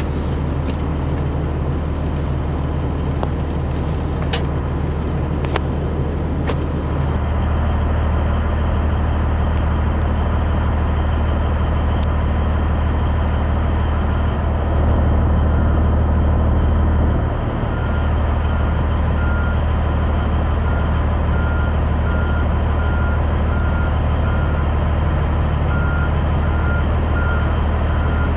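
Cabover Peterbilt 362 semi truck's diesel engine idling with a steady low drone, heard from the cab, growing louder about seven seconds in. A little past halfway a backup alarm starts beeping about once a second.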